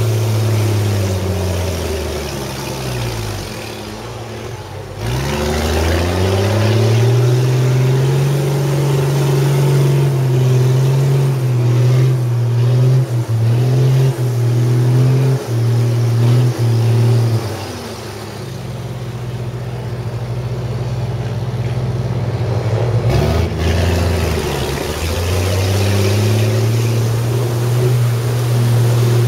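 4x4 army truck's engine running hard under load through mud, its pitch dropping and climbing back twice and holding steady in between.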